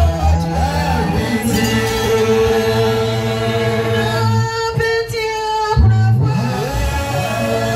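Live singing by several voices into microphones, amplified through a PA over a sustained instrumental backing with bass. The bass drops out for a moment about halfway through, then comes back.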